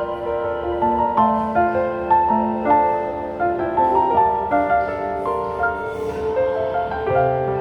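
Background music: a soft piano melody of gently changing notes.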